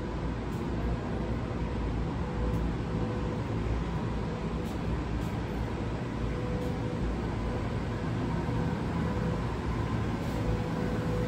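Steady low rumble of city background noise, with a faint hum that comes and goes.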